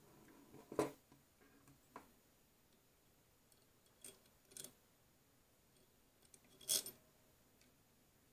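About five light clicks and knocks of small metal hardware being handled, including a threaded steel rod, an angle bracket and nuts, with quiet gaps between them and the loudest near the end.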